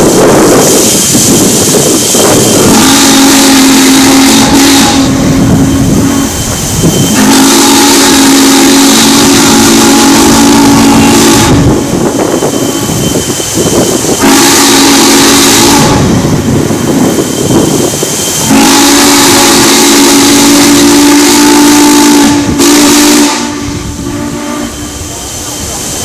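Norfolk and Western 611's Hancock long-bell three-chime steam whistle sounding a chord in four blasts, long, long, short, long: the grade crossing signal. A steady loud hiss of the approaching locomotive runs under it.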